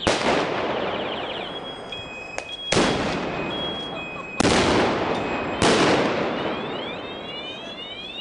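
Fireworks going off in four loud blasts, each followed by a fading crackle and rumble. Near the end a rapidly warbling alarm, a car alarm set off by the blasts, starts sounding.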